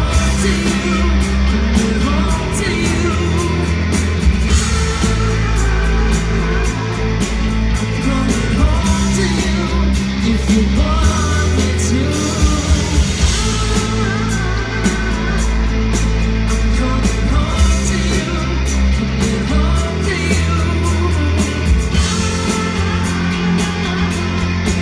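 Rock band playing live: a lead voice singing over guitar, bass and a steady drum beat.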